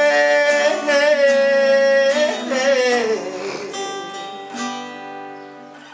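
A male voice holds a long final sung note with vibrato over strummed acoustic guitar, then slides down and stops about two and a half seconds in. The acoustic guitar chords ring on and fade, with another strum near the end.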